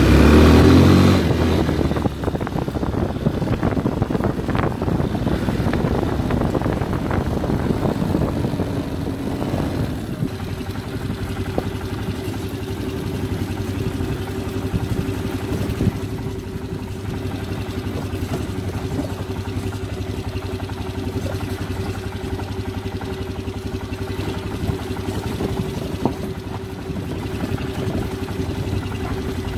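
Keeway 250 ATV engine running while the quad is ridden along a bumpy dirt track, loud for the first second or two and then steadier, holding an even tone from about ten seconds in. Scattered short knocks and rattles from the ride over the rough ground.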